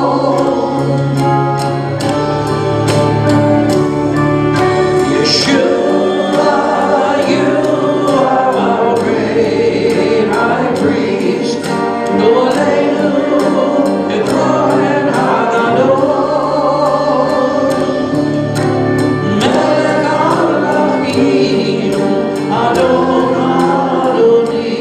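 Live worship music: a choir and congregation singing over a band with a steady drum beat.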